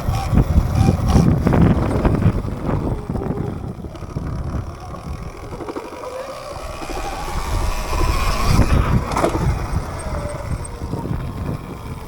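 Electric dirt bike's motor whining, rising and falling in pitch as it speeds up and slows, over rumble from wind and tyres, which is loudest in the first few seconds.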